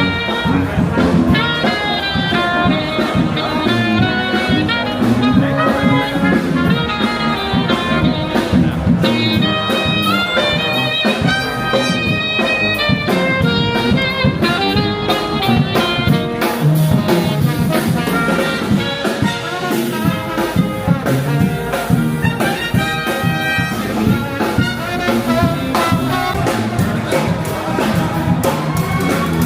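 Brass-led jazz-style background music with a steady beat: trumpet, trombone and saxophone lines.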